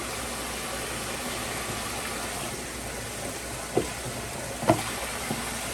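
Toilet flushing: a steady rush of water, with a few short gurgles or knocks about four and five seconds in.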